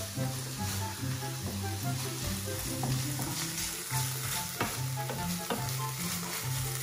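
Shrimp, onion and garlic sizzling in butter in a frying pan, stirred and scraped around with a wooden spatula. Background music plays underneath.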